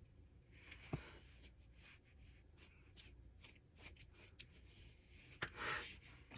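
Faint handling of makeup brushes and products: a sharp click about a second in, a few light ticks, then a brief louder click and rustle near the end.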